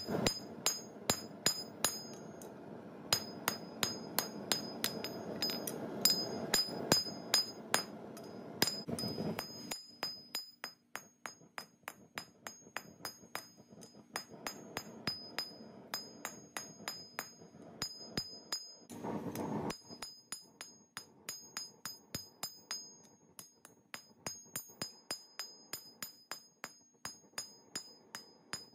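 Hand hammer striking red-hot steel on an anvil, forging an old wrench into a tomahawk head: steady runs of blows about three a second, each with a short high ring, broken by brief pauses.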